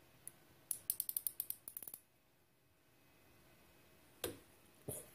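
Outside micrometer's ratchet stop clicking rapidly, about a dozen light clicks in just over a second, as the thimble is turned to close the spindle on a turned steel workpiece in the lathe chuck. Near the end there are two separate knocks as the micrometer is taken off the work.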